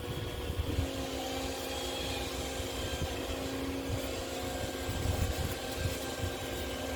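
A steady machine hum with a constant low tone, over an uneven low rumble.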